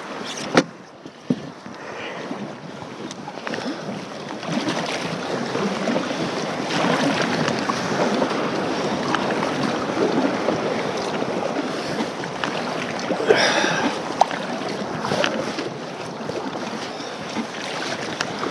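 Kayak paddle strokes splashing through the sea, with wind on the microphone. Two sharp knocks near the start.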